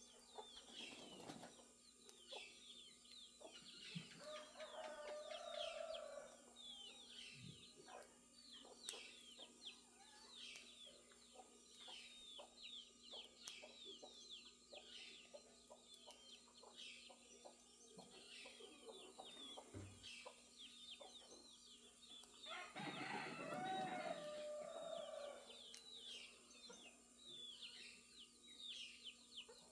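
A rooster crowing twice, about four seconds in and again more loudly near the end, over small birds chirping continuously in quick, short falling notes.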